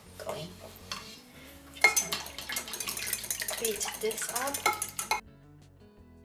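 A metal fork beating an egg into half-and-half in a glass measuring jug: a few light taps, then from about two seconds in a rapid, steady clinking of metal against glass that stops about three seconds later.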